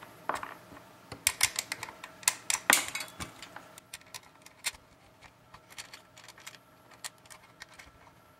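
Small metal nuts being threaded onto bolts by hand: light metallic clicks and ticks of nut, bolt and fingers against the wooden frame. The clicks come thick and sharp for the first few seconds, then grow sparser and fainter.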